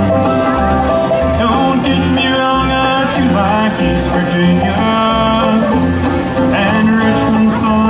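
Live bluegrass music: banjo and guitar picking over a steady, pulsing bass line.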